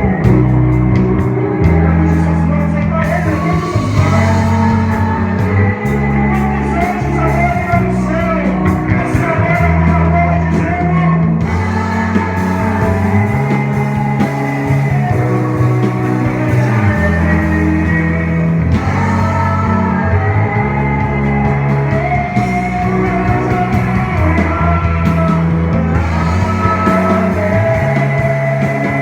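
Worship band playing rock-style music: electric guitar over a bass line that moves every second or two, with steady percussion and a melody line above.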